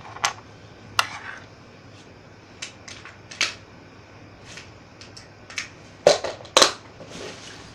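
Small fishing lures and their tackle box being handled and rummaged through: scattered clicks and rattles, the loudest two about six seconds in.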